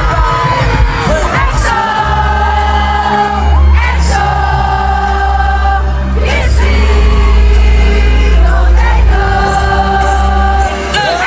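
Live K-pop song played loud through a concert sound system, with long held sung notes over a heavy bass line that comes in about two seconds in.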